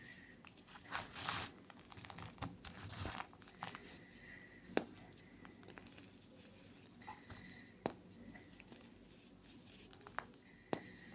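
White gym chalk being crushed, with crumbly crunching and crinkling in bursts during the first few seconds. A few sharp single cracks follow later.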